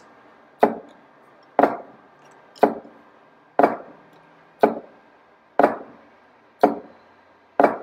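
DC servo motor on a Geckodrive G320X drive reversing direction about once a second, each reversal a short sharp knock, eight in all. The drive's PID loop has just been tuned to about critical damping, so each reversal settles cleanly.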